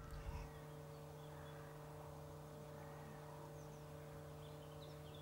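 Faint outdoor ambience: a steady low hum with a few faint high bird chirps near the end.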